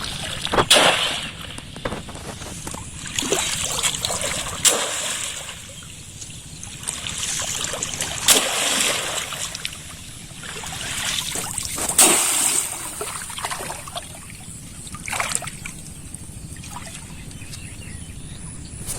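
Shallow pond water splashing and sloshing in irregular bursts, several louder splashes standing out over steady trickling.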